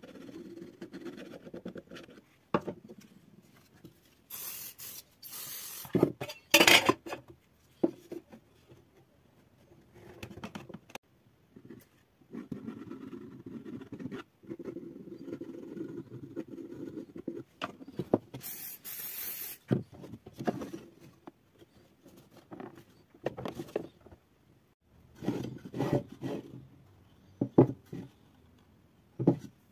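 Plywood panels being handled and fitted together into a box by hand, with scattered knocks and clacks of wood on wood and rubbing and short hissing scrapes between them.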